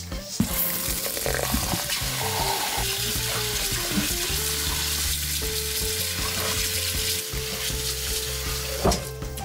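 Steady sizzling hiss of food cooking over heat, under background music, with a sharp utensil knock near the end.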